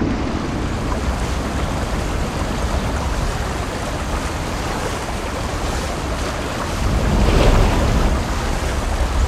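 Rushing, surf-like noise of waves, fairly loud and steady, swelling with a deep rumble about seven seconds in.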